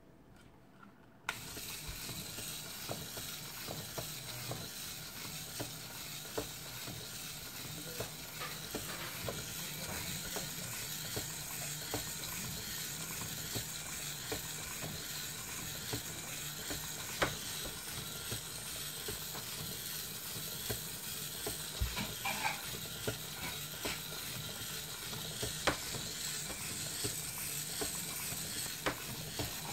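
A LEGO scarecrow automaton's electric motor switches on about a second in, then runs steadily, driving plastic gears and cranks that swing the arms, head and body. It makes a steady whir with scattered clicks and rattles from the plastic parts.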